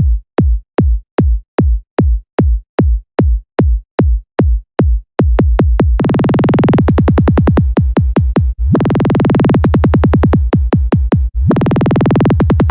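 Electronic sound-check track built on a drum machine: deep kick-drum hits, each dropping in pitch, at about two and a half a second and speeding up. About six seconds in it turns into a dense, rapid run of hits over a steady bass tone, broken twice by short gaps.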